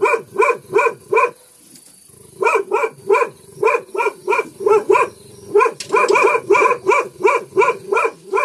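A dog barking repeatedly, about three barks a second, with a pause of about a second near the start.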